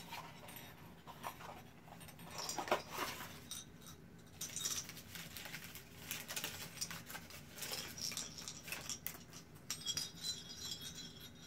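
Tissue paper crinkling and rustling as a small bell ornament is unwrapped and handled. Near the end comes a faint metallic jingle from the small bell.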